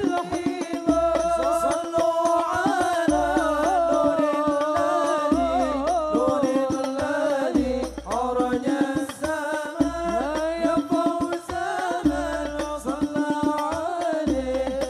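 Sholawat sung by male voices in a winding, ornamented melody over hadroh frame drums (rebana), with rapid drum strokes and a deep low beat about every two seconds.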